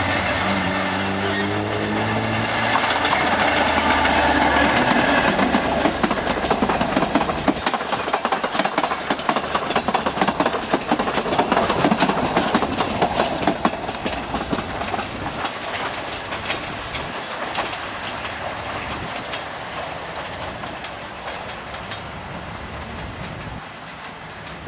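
EMD G22CU diesel-electric locomotive's V12 two-stroke engine running under power as it approaches, then the passenger coaches pass close with a rapid clickety-clack of wheels over rail joints. The sound fades as the train moves away.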